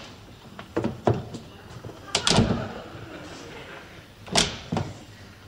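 A door opening and shutting indoors, heard as a few separate knocks and thuds spread over several seconds.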